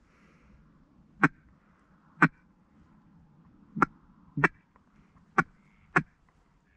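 Six sharp knocks or taps, unevenly spaced about a second apart, over faint background noise.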